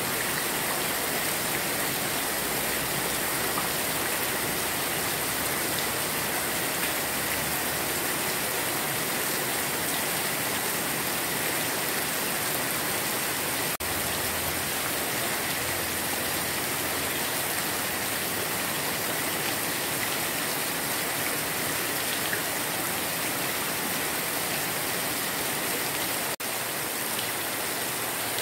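Heavy rain pouring down steadily, a dense, even hiss that drops out briefly twice.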